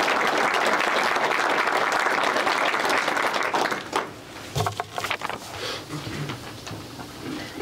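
Audience applauding, dying away about four seconds in, then a few scattered claps.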